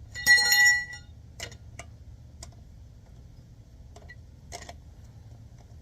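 A metal lug wrench clanks against the wheel's lug bolts with a bright, short metallic ring about a quarter of a second in, followed by a few light metal clicks as it is worked around the bolts.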